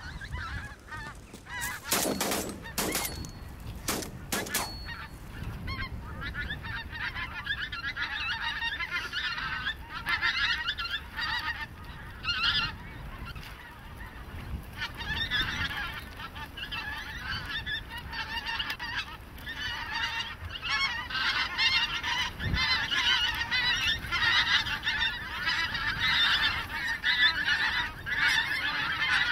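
A large flock of wild geese honking continuously overhead, many calls overlapping, growing louder in the second half. A few sharp sounds stand out about two to four seconds in.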